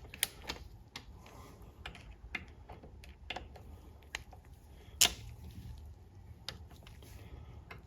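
Scattered sharp metallic clicks of a torque wrench and ratchet as the valve body bolts of a ZF 8HP70 transmission are tightened in sequence, at uneven spacing, with one louder click about five seconds in.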